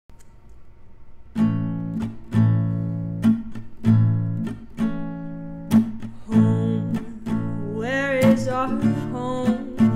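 Acoustic guitar strummed in a slow rhythm, each chord ringing out between strokes, starting about a second and a half in. A voice begins singing the opening line near the end.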